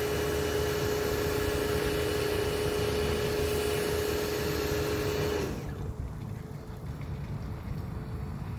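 Steady mechanical hum with one constant tone over a hiss, which cuts off suddenly about five and a half seconds in, leaving a low wind rumble on the microphone.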